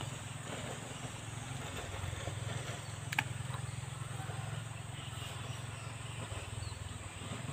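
Steady low outdoor background rumble, with one sharp click about three seconds in.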